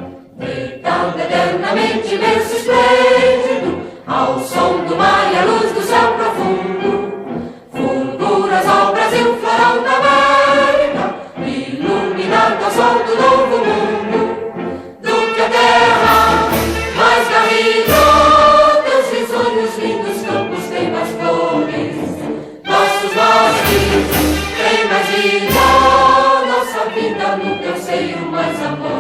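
Choir singing with orchestral accompaniment, in long sustained phrases separated by brief pauses.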